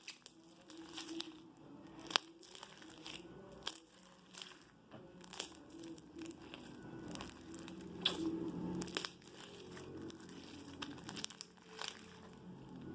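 Slime being squeezed and stretched by hand, giving irregular sticky clicks and crackles.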